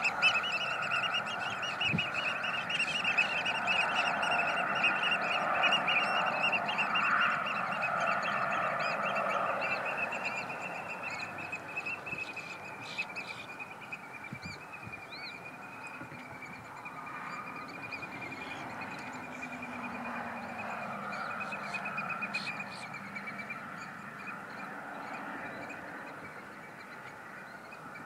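A continuous dense chorus of high, rapidly repeated animal calls, louder for the first several seconds and then easing off. A few higher whistled calls come through around the middle.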